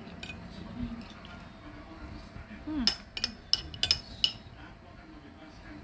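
Metal spoon clinking against a ceramic plate while scooping up rice, with a quick run of sharp clinks about three to four seconds in.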